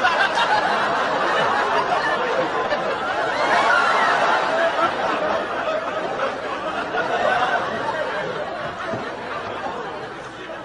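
Audience laughing and chattering, loud at first and slowly dying away toward the end.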